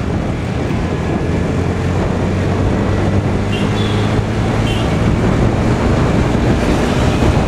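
Scooter engine running with wind rushing over the microphone while riding on the road: a steady low hum under a broad rush of noise, growing slightly louder toward the end.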